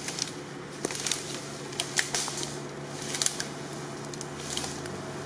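Rustling and scattered light cracks of dry grass, leaves and twigs as a fallen log is dragged and shifted across the forest floor, with a faint steady low hum underneath.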